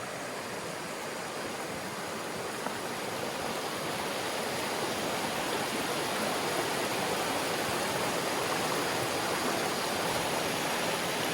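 Mountain stream flowing: a steady rush of water that grows slightly louder.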